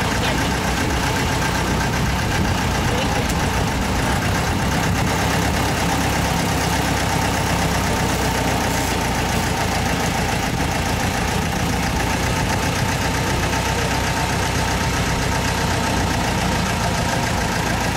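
A passenger motor launch's engine running at a steady cruising speed, with a constant low hum and throb that does not change.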